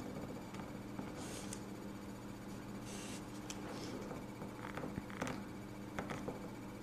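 Faint handling sounds: soft rustles and a few small clicks of fingers, fingernails and a painting brush against a nail tip, over a steady low electrical hum.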